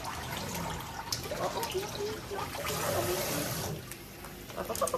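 Water from a kitchen sink's pull-down sprayer running onto a puppy's wet coat and splashing into a stainless steel sink: a steady hiss that grows louder and brighter for about a second in the middle.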